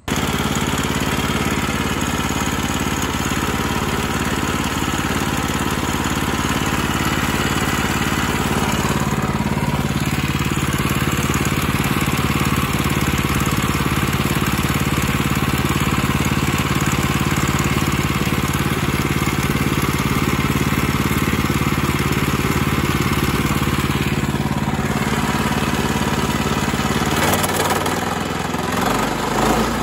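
Small gas engine on a Woodland Mills HM122 portable bandsaw mill running steadily; its note shifts about three seconds before the end.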